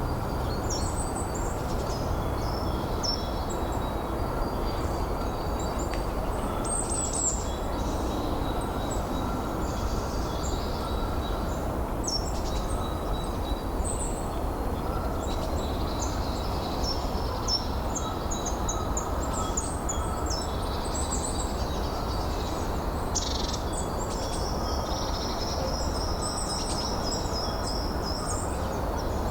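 Several birds chirping and whistling in short high calls over a steady rush of wind, with one longer held whistle about two thirds of the way through.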